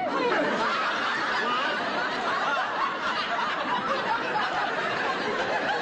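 Studio audience laughing, a long sustained wave of laughter from many people.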